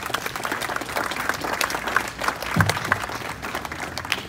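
Audience applauding, many hands clapping, the clapping thinning out near the end.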